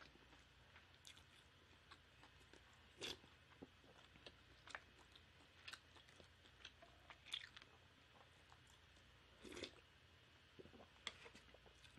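Faint chewing of a mouthful of pork and rice noodles, with a handful of brief, louder mouth clicks and smacks every second or two.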